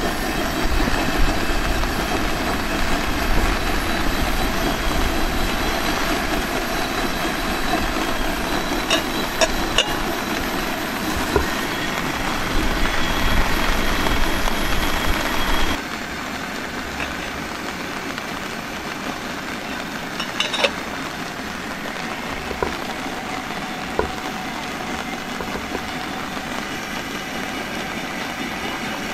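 Steady rushing noise of heavy rain. About halfway through it drops to a quieter level, with a few light clicks and knocks.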